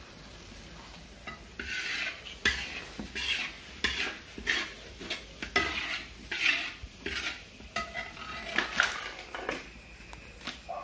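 Tripe fry being stirred in a pan, each stroke of the utensil scraping across the pan: about fifteen strokes at roughly two a second, starting about a second in.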